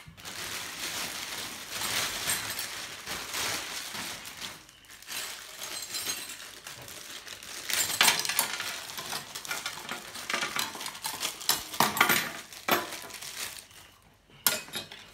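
Metal TV antenna parts, aluminium rods and small fittings, being handled on a glass tabletop: steady rattling and rustling with sharper clinks, the loudest about eight and twelve seconds in.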